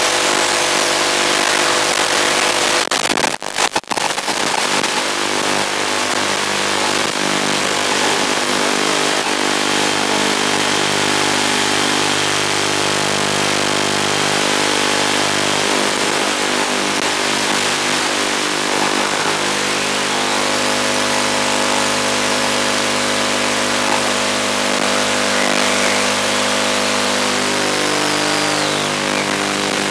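Loud even hiss with a steady buzz beneath it, the noise of an analog FPV video receiver's audio channel, with a short crackling dropout about three to four seconds in.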